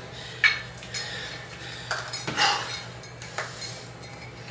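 Dip belt's metal chain clinking and rattling against a metal weight plate as the belt is put on and fastened at the waist: a string of separate clinks with one longer rattle midway.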